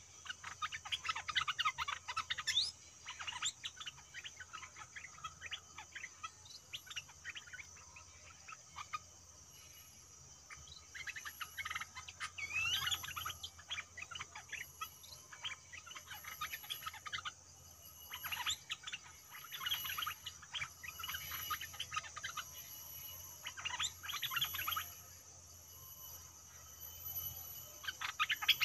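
Stripe-throated bulbuls singing: bursts of quick, bubbling chirpy phrases that come every few seconds, the caged decoy calling in a wild bird. A steady high insect drone and a faint high pulsing insect call, about one a second, go on under the song.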